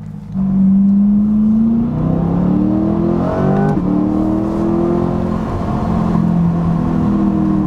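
Chevrolet Corvette C8 Z51's 6.2-litre V8, fitted with an aftermarket exhaust, accelerating hard under load. It gets loud about half a second in and its pitch climbs, drops briefly near the middle at an upshift, then climbs again.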